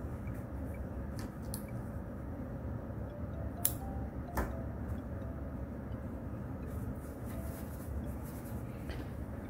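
Faint rustling of hands turning and squeezing a stuffed crocheted yarn ball, over a steady low room hum, with two faint sharp clicks a bit under a second apart near the middle.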